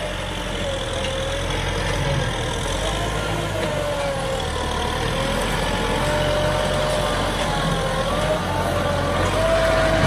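Kubota M6040SU tractor's diesel engine running steadily as it pushes sand with a rear blade, a low rumble with a whine that wavers up and down in pitch, growing a little louder near the end.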